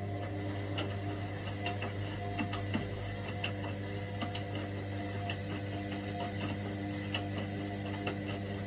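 Indesit washing machine running a cool wash cycle: a steady electrical hum with irregular light ticks and clicks, about two or three a second.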